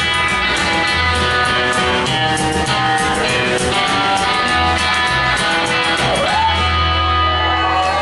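Live rockabilly band playing without vocals: electric guitar over upright bass and drums, with a steady beat.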